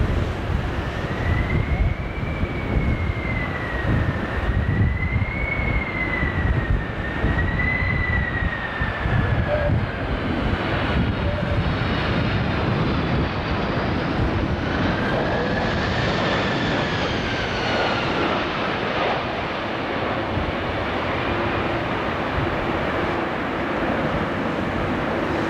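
Boeing 767 turbofan engines on approach: a steady jet whine whose pitch rises and falls several times as thrust changes, over gusty wind rumbling on the microphone.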